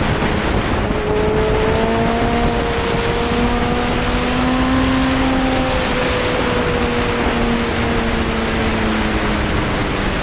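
Yamaha XJR1300's inline-four engine running at road speed under a heavy rush of wind on the microphone. Its revs climb gently for the first few seconds, then slowly drop.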